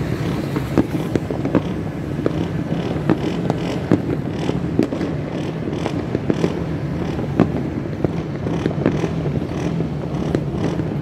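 Many firecrackers and fireworks going off at once across the city: a steady wash of noise broken by many irregular sharp pops and bangs, several a second.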